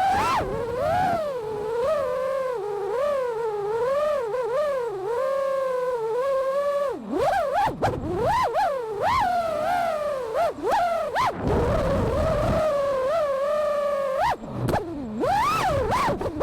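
FPV racing quadcopter's brushless motors and propellers whining, the pitch rising and falling constantly with the throttle, with a few quick swoops about halfway through.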